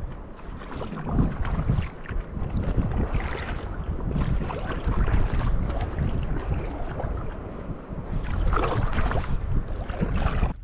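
Repeated kayak paddle strokes splashing through calm sea water from an inflatable kayak, with wind buffeting the microphone.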